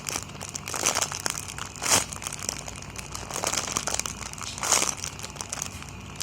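Plastic packaging crinkling and crackling as a squishy toy is handled, with louder crackles about two seconds in and again near the end.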